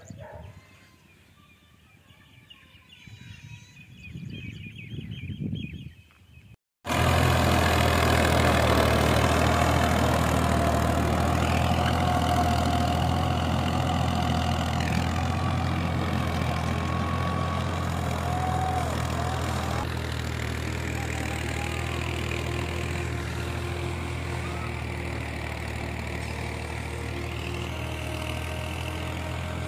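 Tractor diesel engine running steadily at idle, a loud even low hum, coming in abruptly about seven seconds in after a brief gap; before that only quieter, mixed outdoor sounds.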